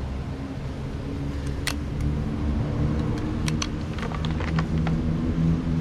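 Mitsubishi Canter PS125 truck's diesel engine running with a steady hum that rises a little in pitch partway through, with scattered sharp clicks and knocks over it.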